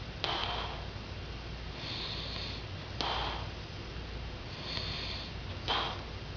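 A sleeping man snoring, with three sharp snorts about two and a half to three seconds apart and softer breathing between them.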